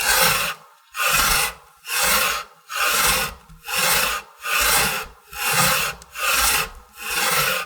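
Rough rasping scrapes on wood: nine even strokes about a second apart.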